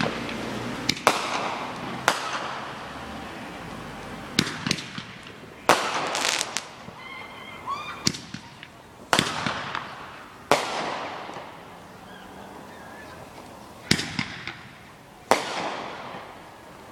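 Fireworks exploding: about a dozen sharp bangs at irregular intervals, some in quick pairs, each trailing off in a long echo.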